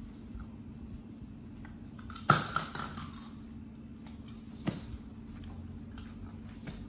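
A sharp clatter of hard objects about two seconds in, ringing briefly, then a single click a little before five seconds and scattered light ticks, over a steady low hum.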